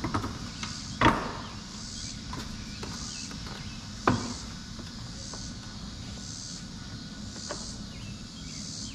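Two sharp knocks, about a second in and again about four seconds in, with a few lighter clicks between: a plastic ZR1-style rear spoiler being pressed and seated onto a C6 Corvette's rear deck lid during a test fit.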